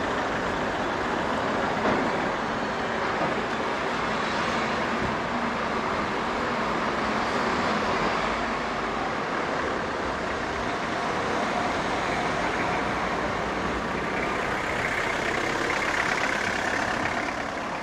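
Road traffic noise: motor vehicles running in the street, a steady rush that swells slightly near the end.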